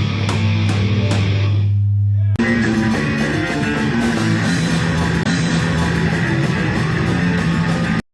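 Instrumental heavy rock played on electric guitar: a held low chord with a few sharp hits for about the first two seconds, then the band comes back in with fuller playing. The music cuts off abruptly near the end.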